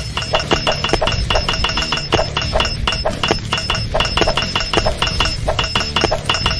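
Cartoon sound effect of rapid hammer-and-chisel strikes on stone, metallic clinks about five a second, over a steady low rumble.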